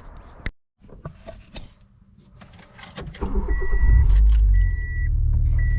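A few clicks and knocks, then about three seconds in the Honda EK Civic's four-cylinder engine starts and settles into a steady idle. A warning chime beeps about once a second over it.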